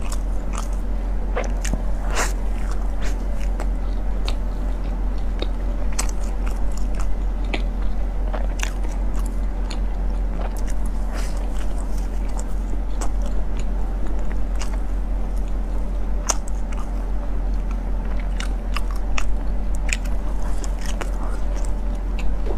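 Close-miked biting and chewing of a soft pork floss bread roll in a thin wrap, with many scattered small clicks and smacks from the mouth, over a steady low hum.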